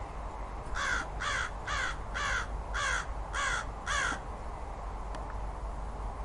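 A corvid cawing seven times in quick succession, about two harsh calls a second, each falling in pitch, over a steady low rumble.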